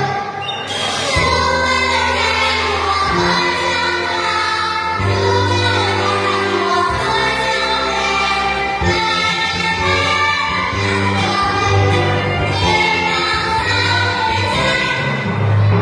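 A children's song sung by a group of voices over instrumental accompaniment with a steady bass line.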